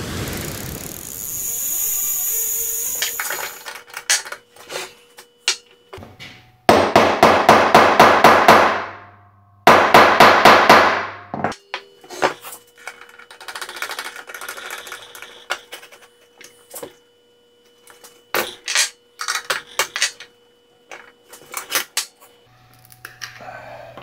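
A surf-like whoosh under a logo intro fades out, then workshop clatter at a bench drill press: scattered sharp knocks and clanks of tools, with two runs of rapid, loud hammer-like strikes over a low hum around the middle.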